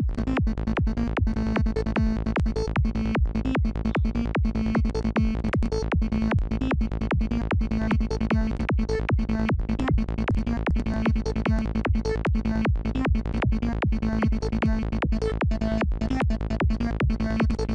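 Dark synthesizer lead patch in Native Instruments Massive playing a looping psytrance sequence in a fast, even pulse over a steady low bass note.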